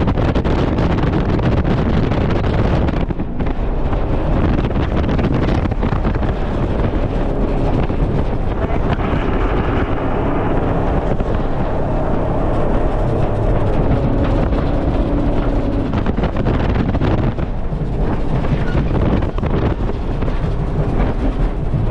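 Jet boat running at speed, its engine and water noise heavily buffeted by wind on the microphone.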